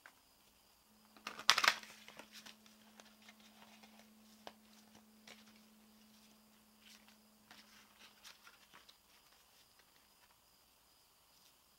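A deck of cards being shuffled by hand: a loud rustle about a second and a half in, then soft slides and taps of the cards. A faint steady low tone sounds under it for several seconds and then fades.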